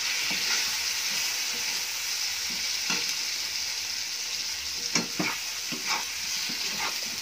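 Raw banana slices with onion and tomato sizzling steadily in oil in a kadai while a metal spoon stirs the chilli-powder masala through them, with a few sharp scrapes and knocks of the spoon against the pan in the second half.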